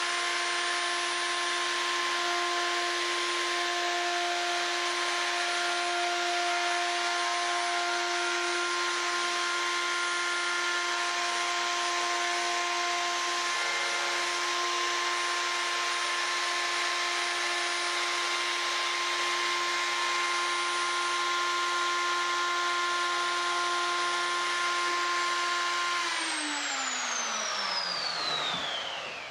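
Plunge router with a quarter-inch straight bit running at full speed, a steady whine as it is pushed along a straight edge cutting a groove in a wooden board. About three seconds before the end it is switched off, and its pitch falls as the motor spins down.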